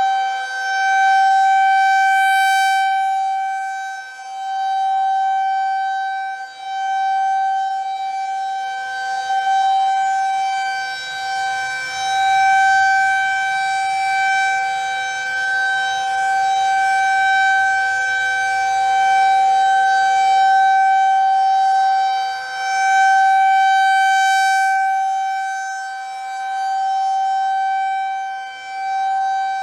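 Federal Signal 2001 rotating tornado siren sounding a steady single-pitched tone during its monthly test, swelling and fading in loudness every several seconds as its rotating horn turns.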